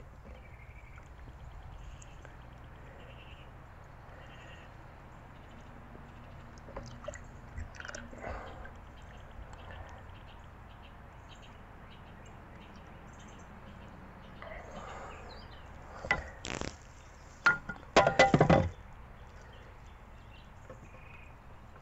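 Quiet outdoor background with faint bird chirps. Near the end comes a quick cluster of sharp knocks and clatters from a plastic container and the wooden hive being handled while sugar syrup goes into the hive's feeder.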